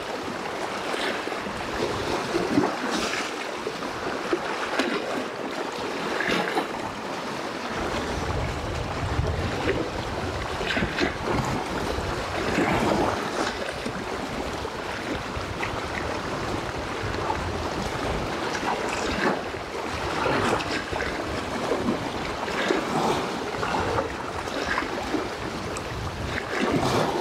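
Small wind-driven waves washing and breaking on a rocky shoreline, a fresh swell every second or few. From about eight seconds in, wind buffets the microphone for around ten seconds.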